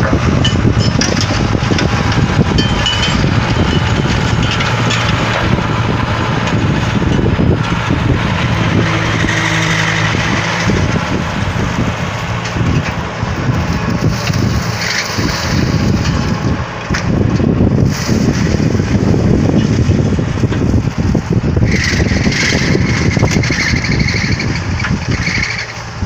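Tractor engine running under load, driving a VOGEL NOOT TST 300 mulcher whose rotor is shredding young shoots and brush in the ground. It is a steady engine hum under continuous crunching and clattering from the mulcher.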